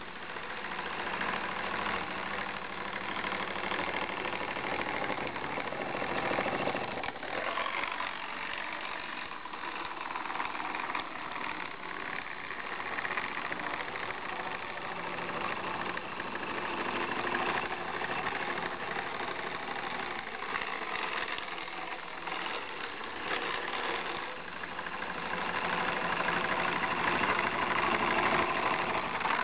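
Small electric toothbrush motor buzzing and rattling steadily, its cam wiggling a plastic flipper back and forth to drive a toy paddle boat. The lowest hum drops away about seven seconds in.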